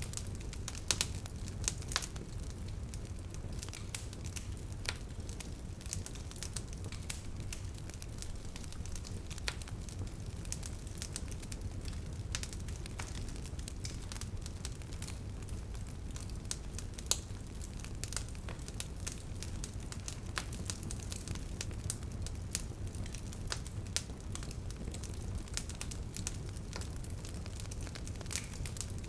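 Fire crackling, with frequent sharp pops scattered over a steady low rumble.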